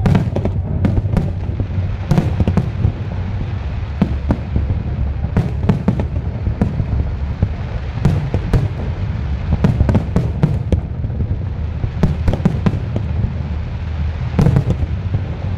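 Aerial firework shells bursting one after another: a dense, irregular run of sharp bangs over a continuous low rumble.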